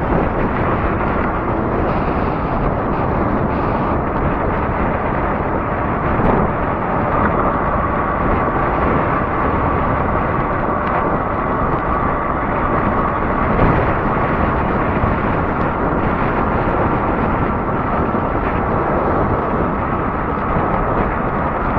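Steady wind rush on the microphone and road noise from a fat-tire e-bike rolling on asphalt at speed. A faint steady whine runs underneath from about a third of the way in.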